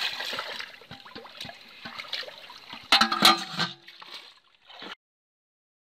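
Small live fish flapping and splashing in a shallow puddle of water, a patter of wet slaps. About three seconds in, two loud metallic knocks with a short ring as an aluminium pot is handled; the sound cuts off about a second later.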